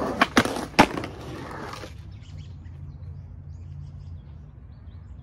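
Skateboard wheels rolling on concrete, with three sharp clacks of the board striking during a trick on a concrete ledge, the loudest about a second in. The rolling dies away about two seconds in, leaving faint bird chirps.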